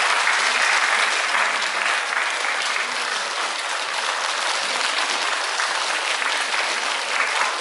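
Sustained applause from a theatre audience and the cast on stage, many hands clapping in a dense, steady patter.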